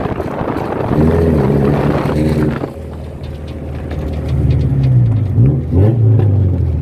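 Honda Civic EK hatchback's swapped-in Type R four-cylinder engine, heard from inside the cabin, revving up hard under acceleration. The pitch climbs, drops suddenly a little under halfway through, then climbs again and dips twice in quick succession near the end.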